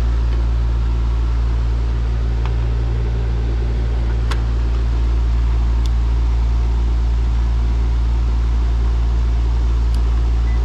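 Carrier heat pump outdoor unit with only its condenser fan motor running, a steady deep hum and rush of air; the compressor is not running. A few light clicks come about four, six and ten seconds in.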